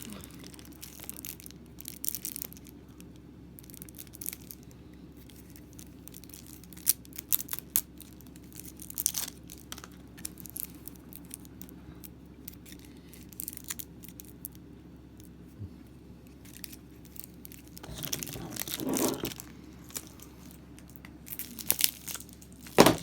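Game packaging being handled and unwrapped, crinkling and tearing in scattered short bursts with sharp clicks.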